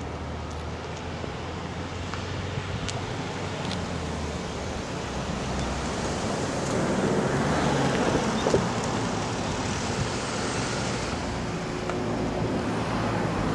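Cars driving past on a narrow road, their engine and tyre noise building to a peak about two-thirds of the way in and then easing.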